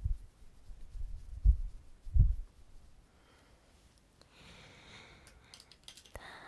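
A few soft, low thumps in the first couple of seconds, then faint breathing and a few small mouth clicks near the end.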